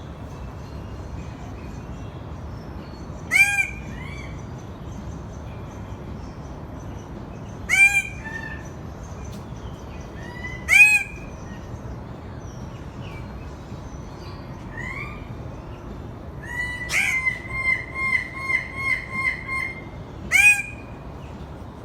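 A bird of paradise calling: single loud, short calls rich in overtones, each rising and then falling in pitch, given four times a few seconds apart, then a quick run of about ten shorter repeated notes near the end. Fainter bird notes sound in the background.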